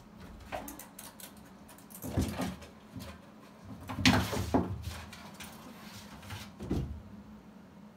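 A cat jumping onto the top of an open wooden door: a series of knocks and thumps as it hits, scrambles on and moves about on the door. The loudest knocks come about four seconds in, with another thump near the end.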